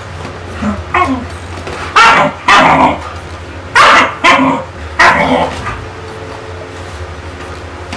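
A pet dog barking repeatedly, about seven barks; a couple of quieter ones come first, then louder ones in quick pairs. Under the barks runs a steady low hum.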